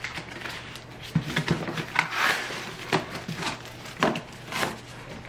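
Cardboard shipping box being opened and handled: flaps pulled back and the box shifted, giving a string of short knocks and rustles with a longer scrape about two seconds in.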